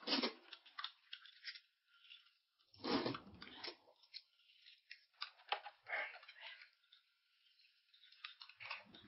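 A person eating close to the microphone: irregular bursts of chewing and crunching, with quiet pauses between them.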